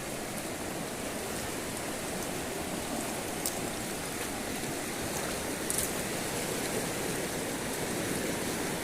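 Steady rushing of a flowing river, with a couple of faint ticks.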